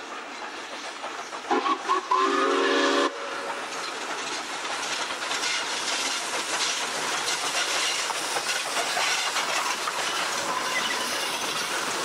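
South Australian Railways Rx-class steam locomotive sounding its whistle about a second and a half in, two short toots and then a longer blast. Then its steam exhaust and the clatter of the train's wheels grow louder as the engine and its carriages pass close by.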